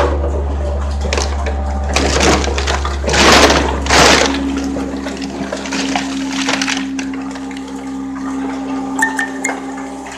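Hydraulic power pack of a vertical PET bottle baler, an electric motor driving the oil pump, running with a steady low hum and a steady higher tone. Three loud rushes of noise come between about two and four seconds in.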